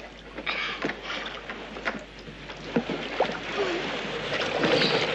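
Surf washing in the shallows and water splashing around wooden rowboats as they are pushed off the beach, with a few short splashes and knocks; the splashing grows louder near the end.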